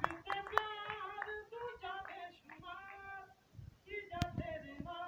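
A high-pitched voice, likely a woman's, singing in short held phrases, with a few sharp hand claps near the start and a single clap about four seconds in.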